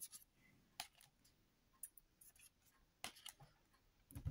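Pokémon trading cards being handled and slid through a stack: a few short, faint paper scrapes and clicks, with a cluster about three seconds in, against near silence.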